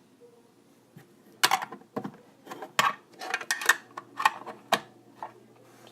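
Fidget spinners and their metal cases being handled: a run of irregular clicks and clinks, starting about a second in.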